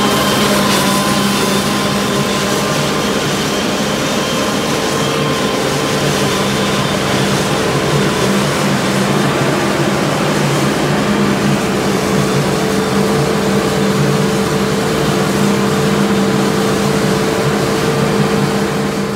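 Tractor engines and a tractor-driven corn silage harvester running steadily while chopping corn: a dense, even mechanical drone with a constant hum and whine.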